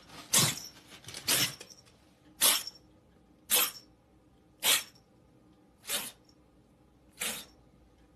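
A kitten sneezing over and over, seven short sharp sneezes about a second apart, the last two weaker.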